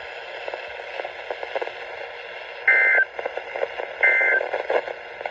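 Weather radio receiver hissing, then two short two-tone digital data bursts about 1.3 seconds apart: the EAS/SAME end-of-message bursts that close the weekly alarm test.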